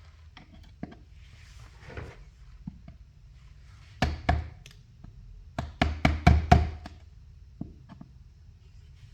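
Sharp knocks and clicks of a hand screwdriver and metal outlet hardware being handled while a wall outlet is worked loose. A quick cluster comes about four seconds in and a longer run around six seconds, with a few lighter ticks between.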